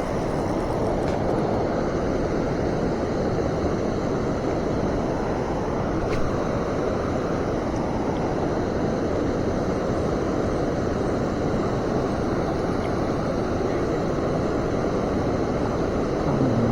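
Steady rushing of flowing river water, with one faint click about six seconds in.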